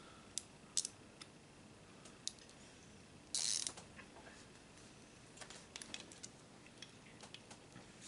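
Small hand ratchet clicking in short spells as it backs screws out of a throttle body housing, with a louder burst of rapid clicks about three and a half seconds in.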